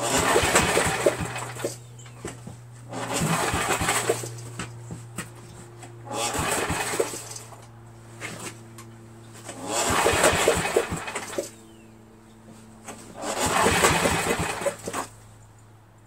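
Briggs & Stratton 11 HP single-cylinder engine being pulled over with its recoil starter five times, each pull cranking it for a second or so without it starting. The owner thinks the ignition switch is busted, leaving no spark.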